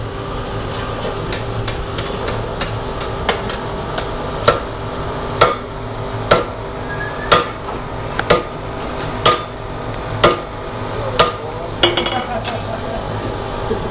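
Blacksmith's hammer striking a steel anvil: quick light taps a few times a second at first, then about a second in from the middle, heavy blows roughly once a second, with the anvil ringing between them.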